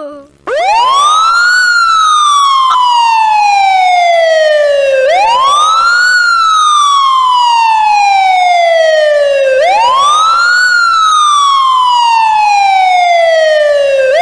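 Wailing siren: the pitch rises quickly, then falls slowly, and the cycle repeats about every four and a half seconds. It starts about half a second in.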